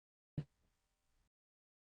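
Near silence, broken by one brief faint click a little under half a second in.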